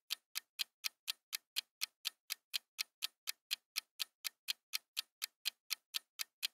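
Countdown timer sound effect: even clock-like ticks, about four a second, while the answer timer runs.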